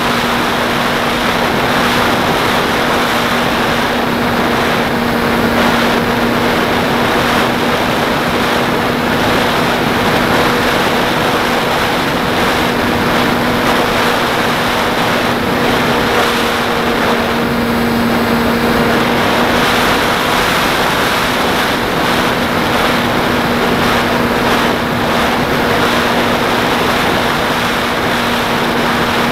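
Onboard sound of a Beta 1400 radio-controlled model plane in flight: its motor and propeller hum at a steady pitch under loud, even wind rush over the airframe.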